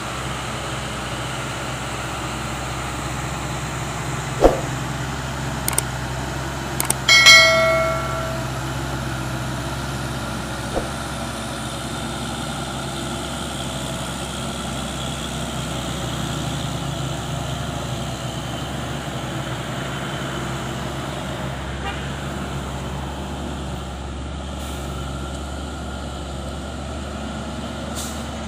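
Heavy trucks' diesel engines running steadily as loaded trucks move slowly past. A sharp knock comes about four seconds in, and a short, loud, pitched tone about seven seconds in.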